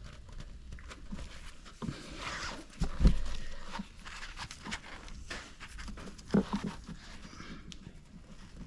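Scattered small clicks and scrapes of hand tools and metal parts while a piston wrist-pin C-clip is worked into place, with one louder knock about three seconds in.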